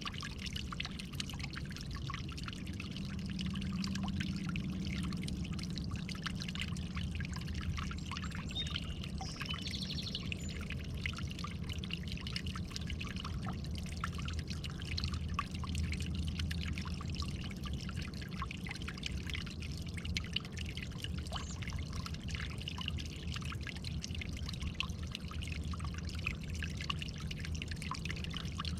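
Running water trickling and splashing steadily, with a constant fine crackle of small splashes over a low rumble.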